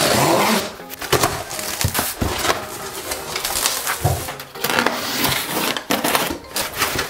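Plastic stretch wrap being sliced and torn off a large cardboard box, and the box flaps pulled open: crackling plastic and rustling cardboard, with many short irregular scrapes.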